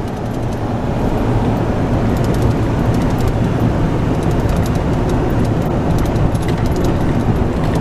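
Steady drone of a vehicle's engine and tyres on the road, heard from inside the cab while driving along.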